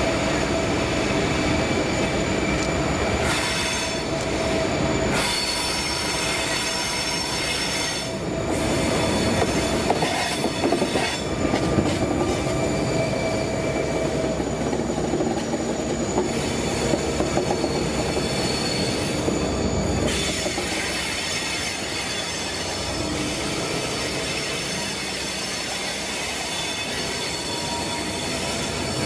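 A freight train headed by Pacific National 81 class EMD two-stroke diesel locomotives passes close by on a curve, with steady high-pitched wheel squeal and a run of sharp wheel clacks. The squeal eases about two-thirds of the way through.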